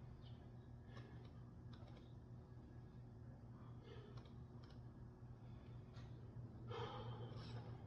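Faint, scattered clicks over a low steady hum, then a louder rushing breath about seven seconds in, like a heavy exhale during a lat pulldown set.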